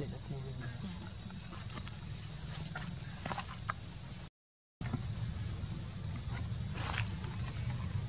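Forest ambience dominated by insects droning steadily at one high pitch, with a low hum underneath and a few soft rustles and clicks. The sound cuts out completely for about half a second near the middle.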